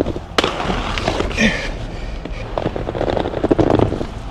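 Aggressive inline skates on hard 95A wheels rolling fast over rough street pavement with a dense, gritty rattle. About half a second in there is a sharp clack as the skate hits the ledge, then a brief scrape, and the rolling rattle comes back near the end.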